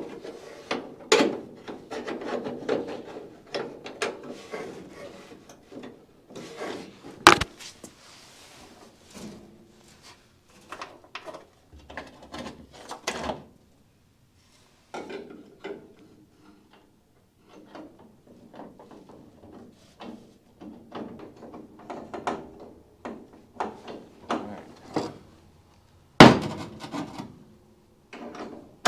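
Irregular metal clinks, knocks and short scrapes of bolts, a loose nut plate and hand tools being handled while the plate is fitted into a car body's door hinge pocket. There is a sharper knock about seven seconds in and another near the end.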